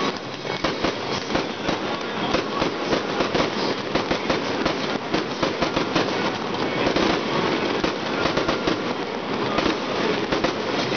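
Fireworks display going off in quick succession: a dense, continuous crackle of many small bangs and pops, overlapping with no pause.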